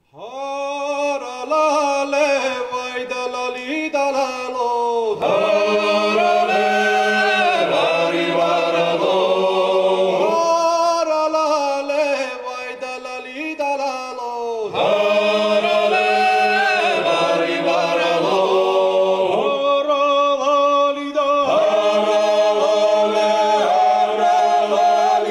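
Georgian male choir singing a traditional Kartlian dance song (satsekvao) a cappella, solo upper voices weaving over a held low bass drone. It goes in phrases broken by short pauses for breath.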